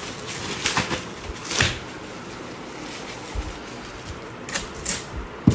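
Clear plastic mailer bags and wrappings rustling and crinkling as orders are packed by hand, in a run of short crinkles, the sharpest about a second and a half in and just before the end.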